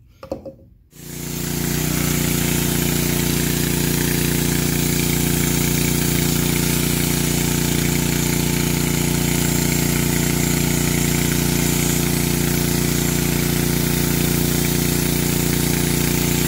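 Gas-powered pressure washer's small engine running at a steady speed under load, with the hiss of a foam cannon spraying. It fades in about a second in and stays even throughout.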